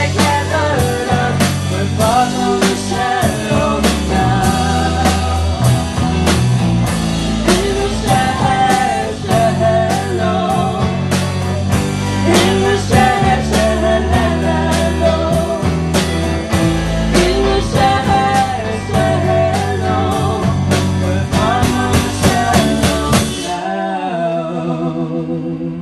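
A man and a woman sing a duet over a live rock band of keyboard, guitars and drums, with a steady drum beat. About 23 seconds in the band cuts out, leaving a sung note held on alone.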